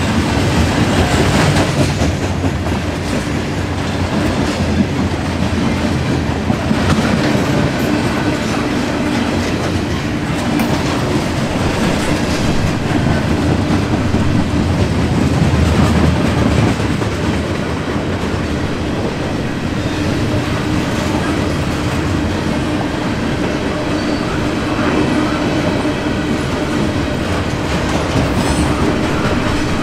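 Freight flatcars loaded with steel coils rolling past: a steady rumble of steel wheels on rail, with clickety-clack as the wheels cross the rail joints.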